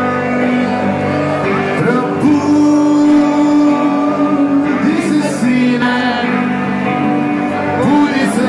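Rock band playing live: electric guitars and drums, with a man singing over them.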